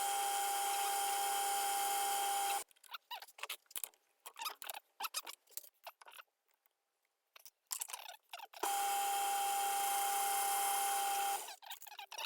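Metal lathe cutting solid brass bar: two spells of about two and a half seconds of steady cutting noise with a single high whine, each starting and stopping abruptly. In between come scattered clicks and scraping.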